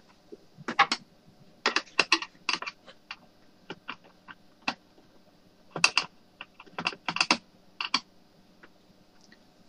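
Flat screwdriver working against the plastic side panel of a laser toner cartridge to break off a plastic rivet: irregular sharp plastic clicks and taps, coming in small quick clusters about every second.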